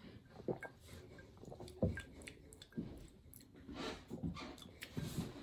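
Faint mouth sounds of a person sipping and swallowing soda, then tasting it, with scattered small lip and tongue clicks and a few soft knocks.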